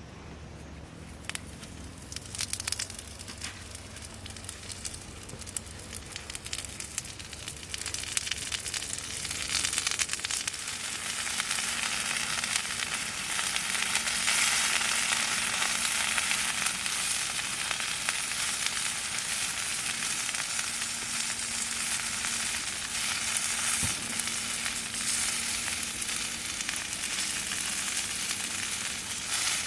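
Food frying and sizzling in hot oil. Scattered crackles at first, building about a third of the way in to a dense, steady sizzle.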